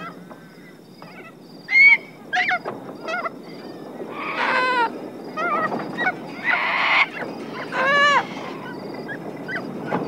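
Little corellas screeching: a string of loud, harsh calls from about two seconds in until about eight seconds in, two of them longer and rasping, over a steady low background noise.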